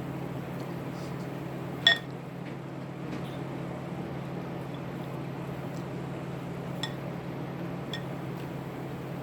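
A sharp clink with a brief pitched ring about two seconds in, then two fainter clinks later, like tableware knocking together during a meal, over a steady low hum.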